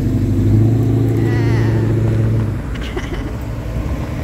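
Classic Ford F-series pickup driving past at low speed, its engine running with a deep, steady note that drops away about two and a half seconds in as the truck moves off.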